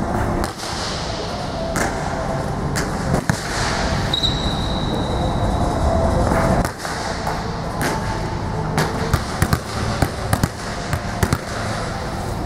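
Volleyball serves: sharp smacks of a hand striking the ball and the ball landing on the gym floor, about a dozen short impacts spread through, over a steady background noise.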